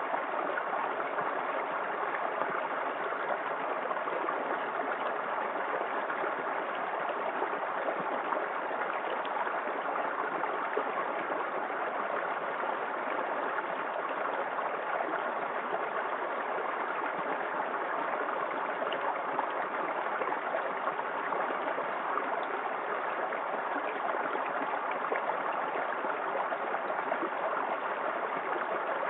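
Small waterfall in a forest creek, the water rushing and splashing steadily.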